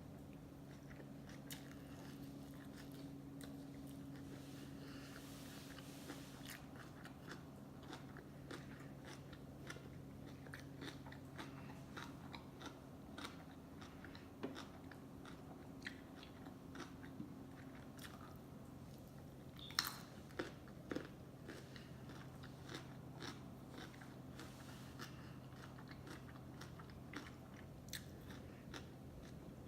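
Close-up chewing and biting of sushi: many small wet mouth clicks and soft crunches, with a few louder snaps about two-thirds of the way through. A faint steady low hum sits underneath.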